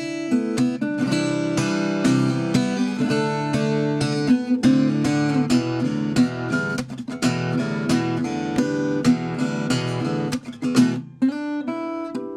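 Loha GA15 acoustic guitar played unplugged, chords ringing with frequent sharp string attacks, briefly softer about eleven seconds in.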